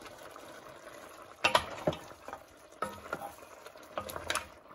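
A wooden spatula stirring a seafood stew of mussels and clams in an enamelled cast-iron pot. After about a second and a half of near stillness comes a string of sharp knocks and clacks as the spatula and shells hit the pot.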